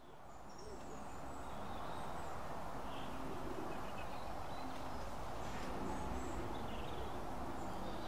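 Birds calling over steady outdoor background noise: short, low call notes recur throughout, with faint high chirps scattered in between.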